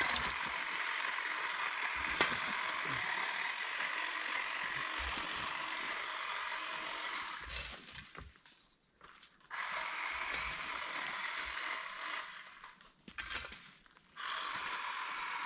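Battery-powered hedge trimmer running steadily while cutting brush, stopping suddenly twice, about eight and thirteen seconds in, and starting again each time.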